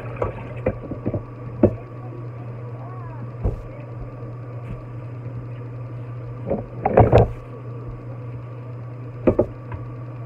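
Tap water running into a dark metal wok in a sink as it is rinsed, over a steady low hum. The pan knocks against the sink and faucet several times, loudest in a quick cluster about seven seconds in.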